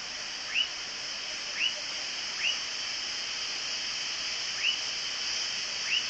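Hushed stadium crowd waiting for the starting gun of a sprint: a steady hiss with five short rising chirps, spaced unevenly.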